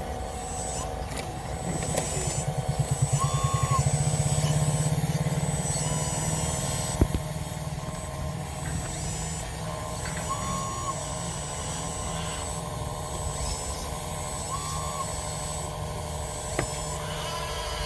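Drive motors and gearing of a 1:14-scale RC tracked skid steer loader, running with a steady whine. The sound grows louder and pulses from about two seconds in, eases off around five seconds, and there is a sharp click about seven seconds in. Faint short chirps recur every few seconds.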